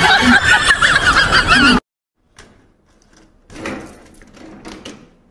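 A loud, wavering cry that breaks off abruptly. Then a key clicks and rattles in a metal door's lock as it is turned.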